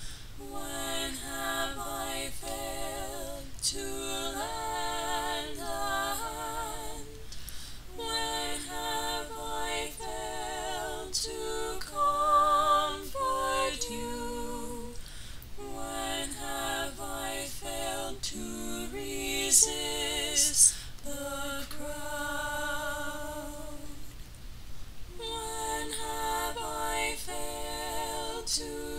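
A woman singing unaccompanied, a slow melody with vibrato sung in phrases with short breaks between them.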